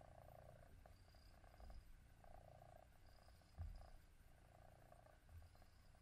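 Domestic cat purring faintly, in a steady rhythm of phrases that follow its breaths in and out. There is a soft low thump about three and a half seconds in.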